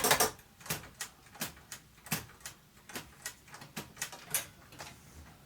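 Moskva-4 portable typewriter's backspace key pressed over and over, each press a sharp mechanical click as the carriage steps back one space. The clicks come about three a second, unevenly spaced, and stop near the end.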